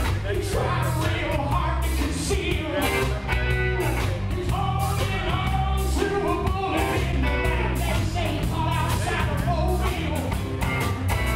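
Live rock band playing, with drums, bass and guitar under a singing voice.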